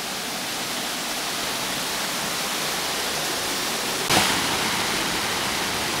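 Waterfall: a steady rush of falling water, with a brief thump about four seconds in.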